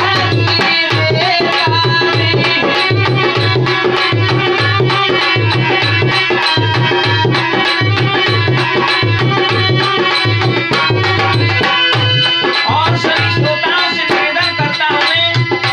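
Harmonium and dholak playing an instrumental passage of a Rajasthani languriya folk song: the harmonium holds a melody of sustained reed tones over a steady dholak rhythm with deep bass strokes.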